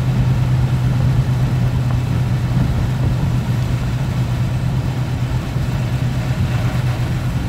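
Car driving along a wet road, heard from inside the cabin: a steady low engine hum over an even rumble of tyres and road noise.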